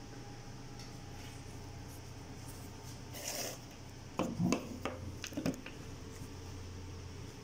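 Steady low hum of equipment with a brief rustle about three seconds in, then a quick cluster of light knocks and taps a second later: handling noise around the ventilator during its oxygen sensor calibration.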